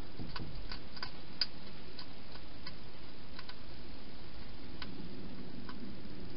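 Wild hedgehog eating at a bowl inside a plastic feeding box: about a dozen small, irregular clicks and crunches, most of them in the first few seconds, over a steady background hiss.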